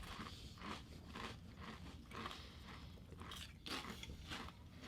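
Faint crunching and chewing of ridged Ruffles potato chips, a series of short crisp crunches as the chips are bitten and chewed.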